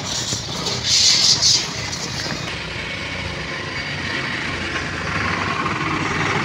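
Road and engine noise of a moving vehicle, a steady rumble with a brief hiss about a second in.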